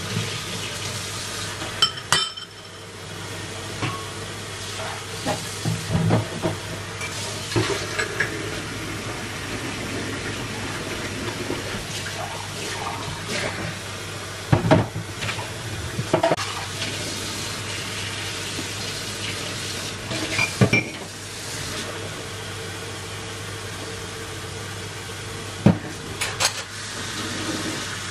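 Dishes being washed by hand at a kitchen sink: tap water running with a steady hiss, and scattered sharp clinks and clanks of glasses, cutlery and stainless-steel bowls being handled.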